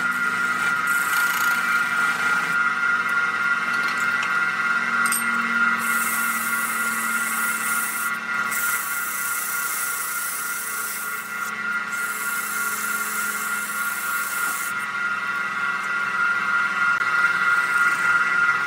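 Wood lathe running with a steady whine while a turning tool cuts the spinning wood, giving several stretches of scraping hiss a few seconds long.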